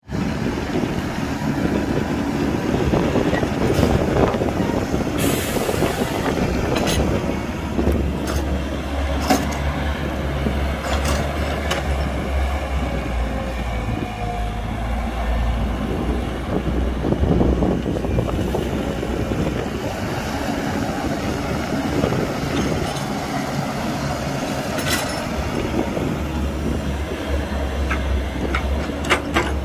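Heavy diesel machinery working: an excavator's engine runs with a steady low rumble that swells under load at times, while dirt is loaded into a dump truck. Scattered sharp clanks and knocks come through it.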